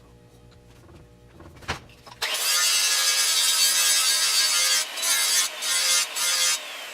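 A 7-inch grinder grinding the steel edge of a lawn mower blade to sharpen it. The grinding starts suddenly about two seconds in and runs loud and harsh, with three brief breaks where the wheel comes off the metal.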